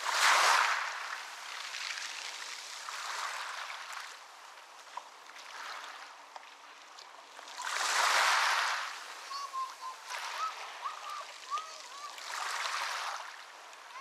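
Ocean waves breaking and washing up a beach in swells, the biggest right at the start and another about eight seconds in, with smaller washes between. A run of short chirps comes in around the middle.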